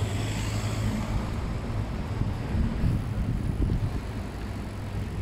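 City street traffic: a motor vehicle's engine running close by with a steady low hum over road noise.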